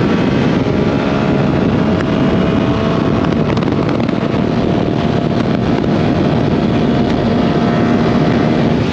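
Yamaha R7's 689 cc parallel-twin engine running at a steady, nearly constant pitch while the bike is ridden, with wind noise on the microphone.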